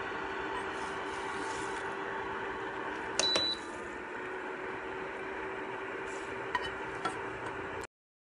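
A steady low hum over a background hiss, with a short burst of sharp clicks about three seconds in and two faint clicks later; the sound cuts off abruptly near the end.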